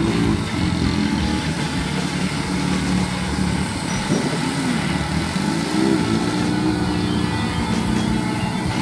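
Off-road vehicle engine running, revving up and back down a couple of times.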